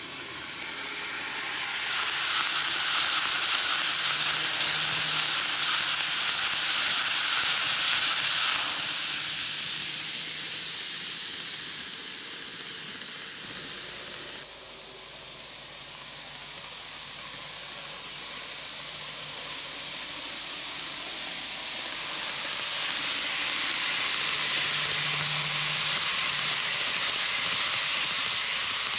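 N gauge model electric train running on sectional track: a steady hiss of the motor and wheels on the rails that swells as the cars pass close and then fades. After a cut about halfway through, a second pass builds up loud again near the end.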